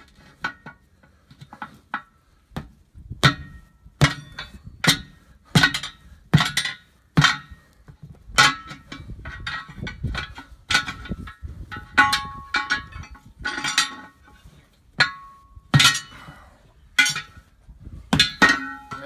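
Steel pry bar (tire iron) working a tractor tire's bead off its steel wheel rim: a run of irregular sharp metal clanks and knocks, about one every half second to second, some ringing briefly.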